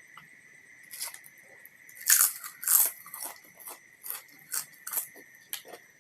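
A person biting and chewing crisp food close to the microphone: two loud crunches about two and three seconds in, then a run of smaller chewing crunches.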